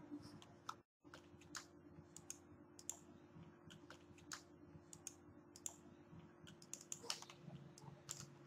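Faint, irregular clicks and taps of a computer keyboard and mouse, over a low steady hum. The sound cuts out completely for a moment about a second in.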